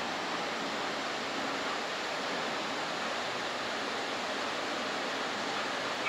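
Steady, even rushing noise with no distinct events in it.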